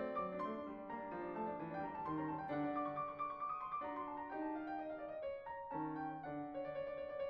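Background piano music: a slow succession of held notes and chords.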